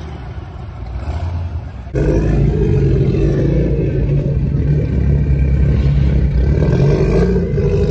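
A car pulling away, its engine sound fading. About two seconds in it cuts abruptly to a louder, steady drone of engine and road noise inside a moving car's cabin.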